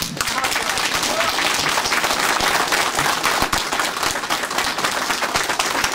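A small crowd applauding, many hands clapping together steadily.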